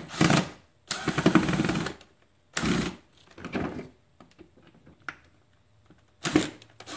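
Cordless drill driving a rust-proof screw into the cracked plastic footwell of a 2008 Yamaha Grizzly ATV, to draw the crack together. It runs in several short bursts; the longest, about a second in, lasts about a second and has a rapid clicking through it.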